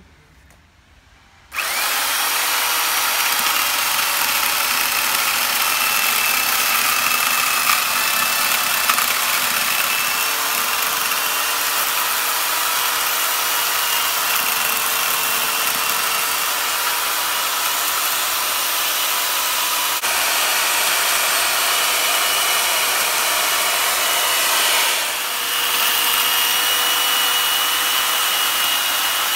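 Corded electric chainsaw starting up about a second and a half in and running steadily as it cuts into a bonsai tree's trunk, easing off briefly once near the end.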